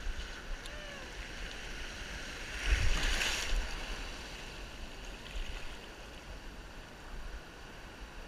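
Ocean surf heard from right at the water surface: steady sloshing and hiss, with a small wave breaking into whitewater and rushing past about three seconds in.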